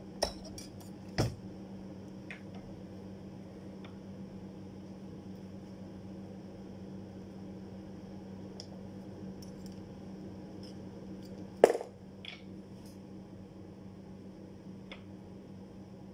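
Sharp metallic clanks and clinks from a hand-lever bender and the steel cutting-rule blade it shapes for a cutting die: two near the start, a few lighter ticks, and the loudest clank about twelve seconds in.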